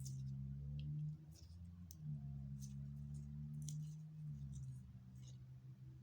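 Clear slime being mixed by hand, with scattered sticky clicks and small pops over a low steady hum that shifts pitch a few times.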